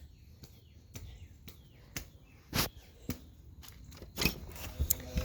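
Quiet outdoor background with faint bird chirps, broken by several sharp knocks or bumps, the loudest about halfway through.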